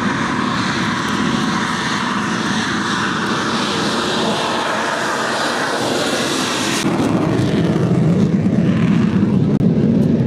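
RAF BAE Hawk trainer's Adour turbofan engine running at high power on its takeoff run, a loud steady jet roar. About two-thirds of the way in the sound shifts abruptly to a louder, deeper roar.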